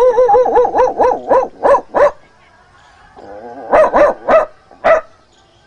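A man imitating a dog with his voice: a fast run of about a dozen high yapping barks, then a lower drawn-out sound meant as the dog's yawn, then a second burst of about six barks.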